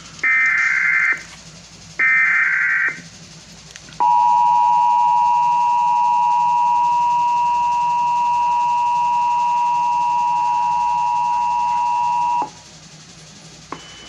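Emergency Alert System test broadcast: the last two of three SAME header data bursts, each about a second of digital data tones, then after a short pause the EAS attention signal, a steady two-tone 853 and 960 Hz alarm held for about eight seconds before it cuts off, followed by a faint click.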